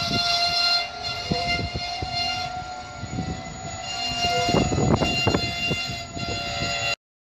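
Freight train of GB Railfreight covered hopper wagons rolling past at close range: the wheels clatter and knock over the rail joints, over a steady high-pitched squeal of several tones at once. The sound cuts off abruptly about seven seconds in.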